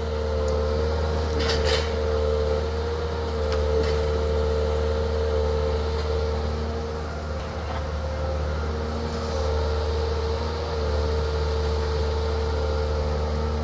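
John Deere 160LC hydraulic excavator's diesel engine running steadily under working load, with a constant whine over the low rumble, as the bucket digs at a tree stump. A couple of short knocks come in the first few seconds.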